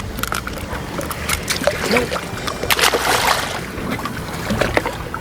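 A boat's engine running steadily with a low hum, with scattered knocks and clatter on deck and a brief rush of noise about three seconds in.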